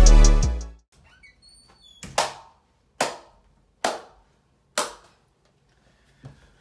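Electronic intro music cuts off within the first second. A man then claps his hands four times, a little under a second apart, each clap sharp and loud.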